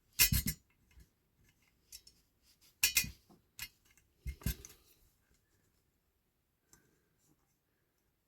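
Small hand tool scraping and clicking against a diecast model car body, working at the melted plastic that holds a door mirror, in three short bursts during the first five seconds, then a few faint ticks.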